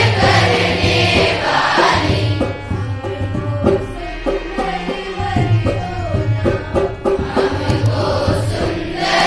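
A group of girls' voices singing a Hindi prayer together, accompanied by a harmonium's held notes and tabla-like hand-drum strokes. The singing softens for a few seconds a little over two seconds in, leaving the drum strokes clearer.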